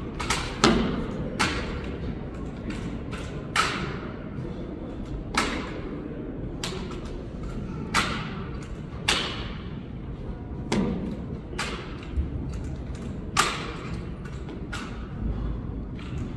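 Drill rifle being spun, caught and slapped between the hands and against the body, a dozen or so sharp smacks at irregular intervals with a short echo after each, the loudest near the start and about three-quarters of the way in.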